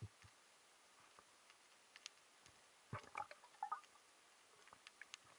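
Faint underwater ambience heard through the camera's housing: sparse, scattered clicks, with a short cluster of louder clicks and knocks about three seconds in.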